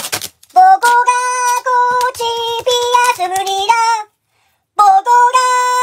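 High-pitched, child-like singing on a simple tune of held notes stepping between a few pitches. It breaks off for about half a second a little past the middle, then carries on.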